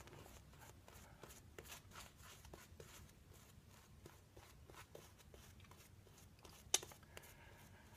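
Straight razor scraping stubble through shaving lather in a run of short, faint, scratchy strokes, with one sharper click near the end.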